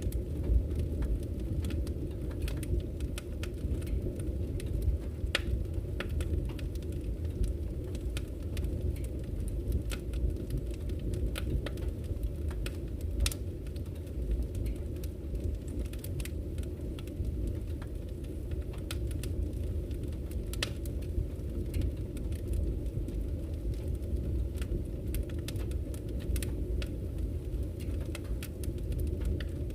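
Wood fire burning in a fireplace, a steady low rush of flames with frequent sharp, irregular crackles and pops from the burning logs.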